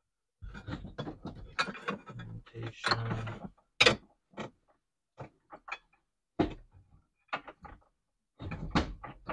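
Fuel pump top hat being worked down into the fuel tank opening by hand: a string of irregular clicks, knocks and scrapes as it is pushed and turned into its seated position.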